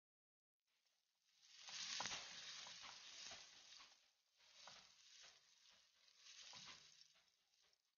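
Chopped red onions sizzling faintly in oil in an aluminium wok as a wooden spatula stirs them. The sizzle swells three times with the stirring strokes, with light scrapes and taps of the spatula against the pan.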